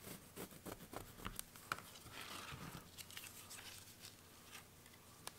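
Faint pencil scratching as a line is traced along a paper pattern onto leather, with light ticks and rustles of the paper being handled: a run of short ticks, then a longer scratchy stretch about two seconds in.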